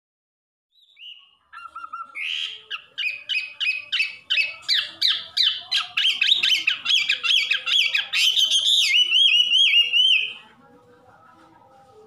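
Chinese hwamei (wambi) singing: a long run of quick repeated sweeping notes that speeds up, turning into a rising-and-falling warble before it stops about ten and a half seconds in.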